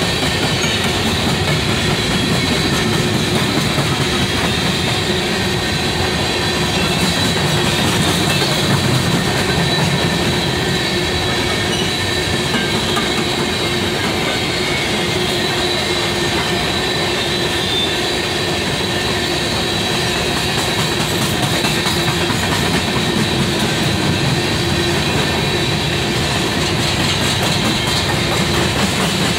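Freight train of open-top hopper cars rolling past at a steady speed: a continuous rumble of steel wheels on rail, with a thin, steady high squeal riding over it.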